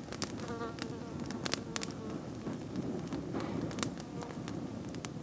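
Small campfire of old man's beard and dry brown leaves catching, crackling with many irregular sharp snaps and pops over a steady rush of flame as the fast-burning kindling takes off.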